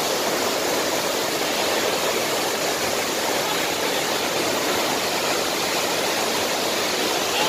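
Tall waterfall pouring into its plunge pool and river: a steady, even rush of falling water.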